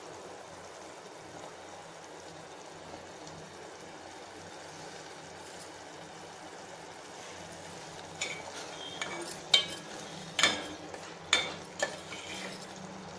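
Thick onion-tamarind pickle simmering in oil in a metal pot, a steady bubbling sizzle, as it is cooked down until the oil separates. From about eight seconds in, a metal spoon stirs it, knocking and scraping against the pot several times, the loudest knocks in the last few seconds.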